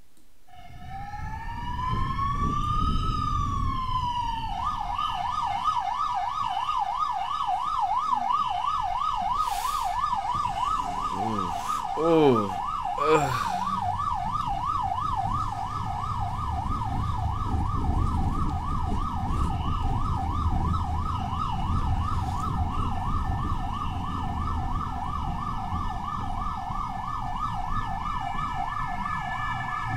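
Emergency vehicle siren: one slow wail rising and falling, then a fast yelp warbling up and down several times a second without a break. Engine and road rumble run underneath, and a couple of short, louder falling-pitch blasts come around twelve and thirteen seconds in.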